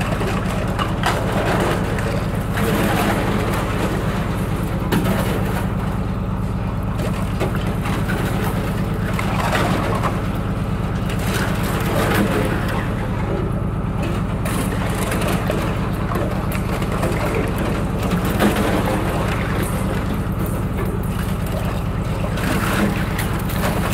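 A narrowboat's engine running steadily while thin ice crunches and crackles irregularly against the hull as the boat breaks through it, with a few louder cracks.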